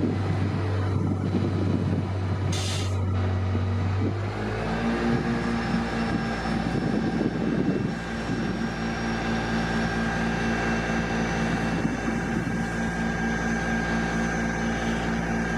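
A vehicle engine runs with a steady hum. About four seconds in, the hum steps up to a higher pitch and takes on a slight pulsing, then holds steady.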